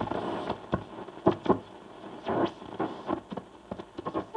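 Philips 461A valve radio on the shortwave band between stations: static hiss broken by many short crackles and bursts as the tuning passes across the band.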